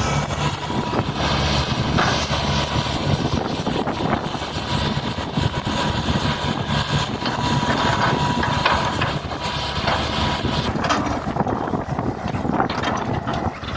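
Hitachi hydraulic excavator's diesel engine running steadily while it works, with a steady high whine over the engine hum and scattered knocks and clanks from the machine.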